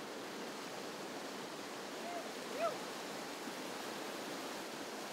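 Steady rush of whitewater rapids. About two and a half seconds in, a short call briefly rises above the water.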